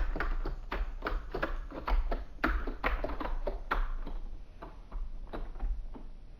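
Computer keyboard keys tapped in quick irregular strokes as a password is typed, thinning out to fewer keystrokes in the last couple of seconds.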